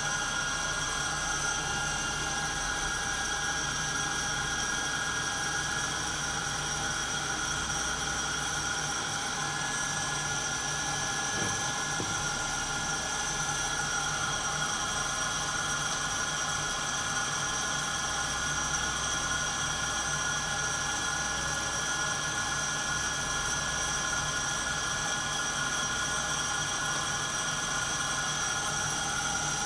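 Santoker Q5 coffee roaster running mid-roast: a steady mechanical whir with a constant high-pitched whine and a low hum underneath.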